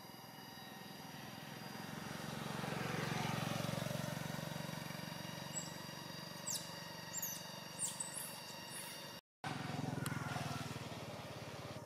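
Engine hum of a passing motor vehicle, swelling to a peak about three seconds in and then fading, with a few short high chirps over it. The sound cuts out for a moment near nine seconds, and then another engine hum swells up.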